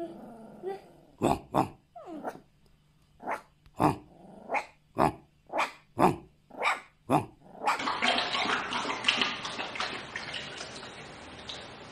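Rottweiler puppy giving a string of about eleven short, sharp yaps, one to two a second. Near the end of the string the sound changes to a steady rough, hissing noise.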